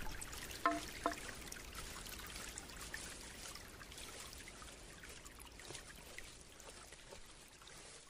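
Faint trickling water, like a small forest stream, with scattered tiny drips. Less than a second in come two brief taps less than half a second apart, the loudest sounds here.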